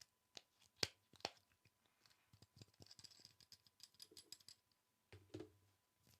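ASMR tapping and clicking: a few sharp separate taps in the first second and a half, then a quick run of light clicks about halfway through, and a duller, softer tap near the end.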